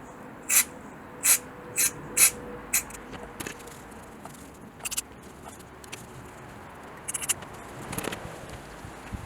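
A run of short, sharp scrapes from hand work on a speedometer, coming every half second or so at first, then more scattered.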